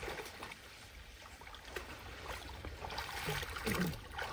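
Shallow water sloshing and trickling as people wade and work a fishing net, with a few faint voices in the last second.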